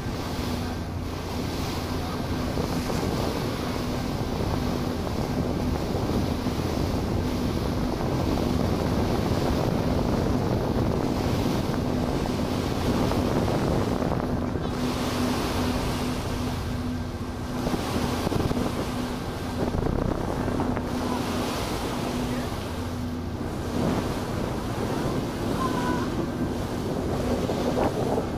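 Passenger ferry under way: wind buffeting the microphone and water rushing past the hull over the steady drone of the ferry's engine.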